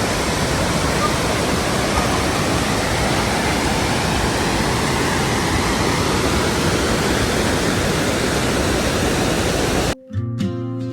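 Steady rushing of a waterfall, cut off suddenly near the end by music with a whistle-like, flute-like melody.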